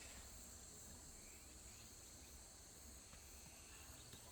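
Faint, steady high-pitched chirring of insects outdoors, with a low rumble underneath.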